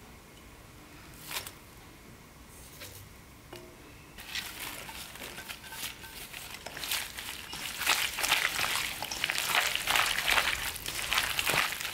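Sliced green onions are added to a stainless steel bowl of chili-marinated pork and mixed in by a gloved hand, making a dense, wet, crackly sound of many small noises. It starts about four seconds in and grows louder toward the end, after a single light click earlier on.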